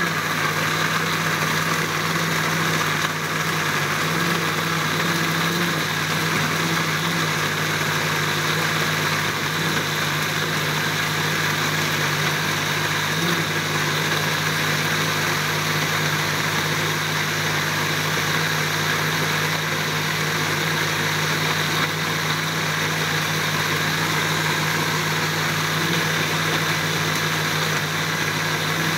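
Electric countertop blender running steadily at full speed, its motor giving a constant hum as it purées whole chilies, garlic and cooking oil into a chili paste.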